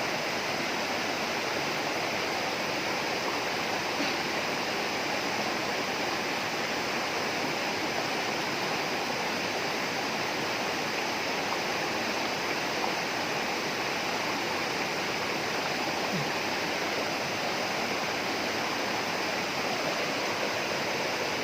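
Running water rushing steadily, with no break or change.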